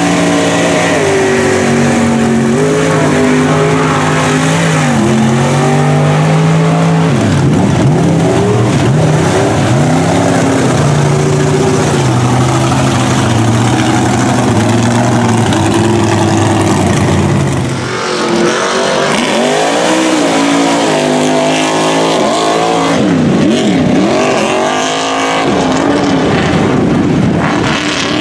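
Mud-bog trucks' engines revving hard as they plow through a mud pit, the pitch held high for a few seconds at a time, then dipping and climbing again. About two-thirds of the way in, the sound breaks and another truck takes over.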